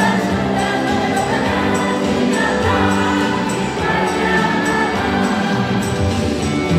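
Mixed choir of women's and men's voices singing together in harmony, several parts held at once and moving from note to note.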